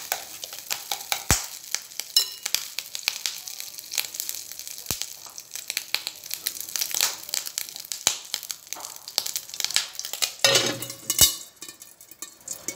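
Hot oil crackling and spitting in a frying pan, with scattered sharp pops. About ten and a half seconds in, a short metallic clatter as a steel lid is set over the pan.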